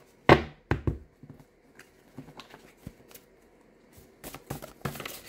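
Tarot cards being handled and shuffled: a few sharp snaps in the first second, then scattered light flicks, and a denser flurry of shuffling about four seconds in.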